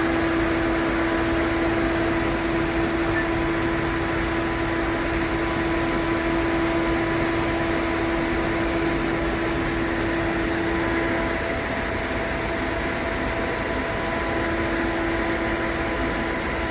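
Steady hum of a Volvo V70's air conditioning running in the cabin. Its strongest tone drops out about eleven seconds in and comes back a few seconds later.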